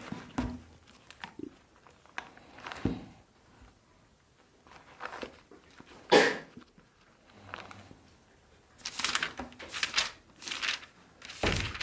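Pages being leafed through and handled at a wooden lectern: a series of short rustles and soft knocks, coming thickest a little before the end.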